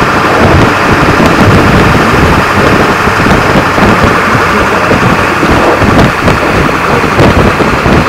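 Loud, steady rumbling noise of a Ford F-350 dually plow truck with a 7.3 L Power Stroke diesel working through a snowstorm, with no distinct events.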